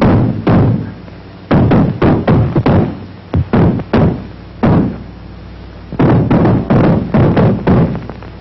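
A rapid, irregular run of loud knocks and thuds, about two a second, each dying away quickly, over a steady low hum.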